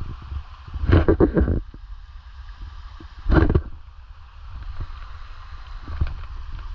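Low rumble of wind and handling on a hand-held camera microphone during a walk on a muddy trail, with two louder bursts of noise, about a second in and again past the middle.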